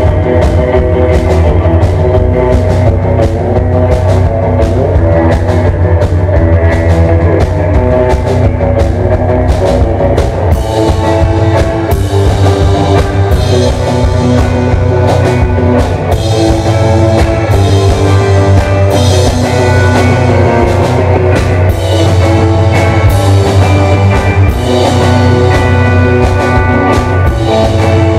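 Live rock band playing loudly: electric guitar over a driving drum kit beat, with no vocals.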